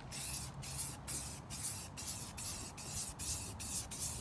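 Aerosol spray-paint can spraying in quick short bursts, about two or three hisses a second with brief gaps between them.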